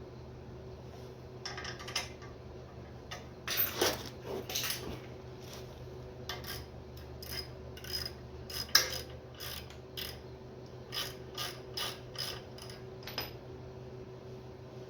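Hand ratchet wrench clicking in short, irregular runs as the clutch pressure plate bolts are run in around the pattern. A steady low hum sits underneath.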